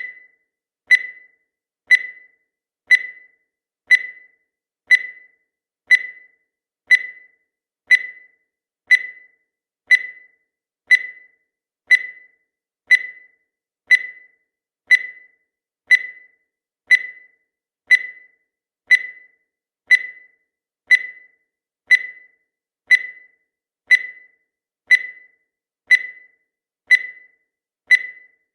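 Countdown timer sound effect: a short, high beep once every second, each one fading away quickly.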